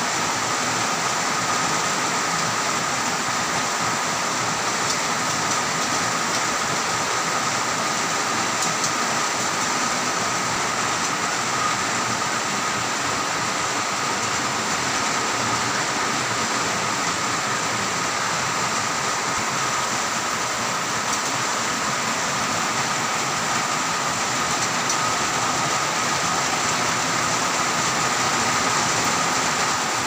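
Heavy rain falling as a steady, even hiss, with a thin steady high tone running through it.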